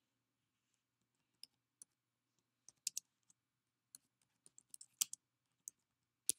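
Typing on an iPad's on-screen keyboard: faint, sharp key clicks at an irregular pace, starting about a second and a half in.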